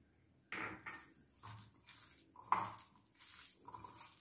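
A hand squeezing and mixing shredded banana flower into a damp gram-flour and rice-flour batter in a glass bowl: irregular wet, crunchy squishes, about half a dozen strokes starting about half a second in.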